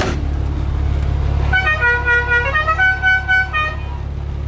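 A musical horn on a converted school bus, sounded by a dash button, plays a short tune of about ten stepped notes lasting about two seconds. A steady low engine hum runs underneath.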